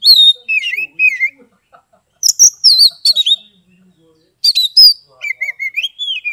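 Oriental magpie-robin (kacer) singing in the loud, open ngeplong style: three bursts of clear whistled notes that sweep up and down, with short quick trills, separated by pauses of about a second.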